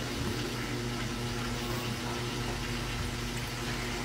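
Steady background noise: a low, even hum with a faint hiss over it, unchanging throughout.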